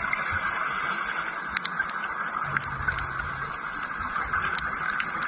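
Underwater sound through a diver's camera housing: a steady hiss with scattered sharp clicks and irregular low rumbles of scuba divers' exhaled bubbles.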